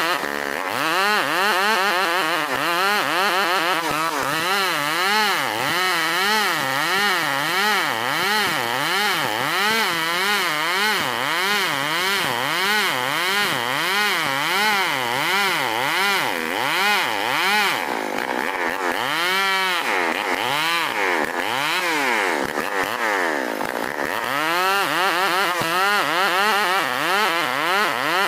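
STIHL 070 two-stroke chainsaw ripping lengthwise through an ulin (Bornean ironwood) log, its engine note rising and falling about one and a half times a second as it cuts.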